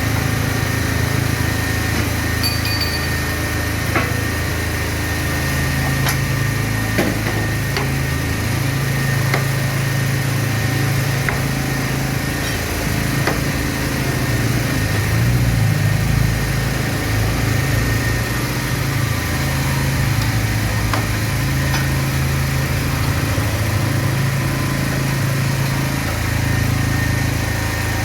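An engine running steadily, its hum swelling and easing every few seconds, with a few scattered sharp clicks over it.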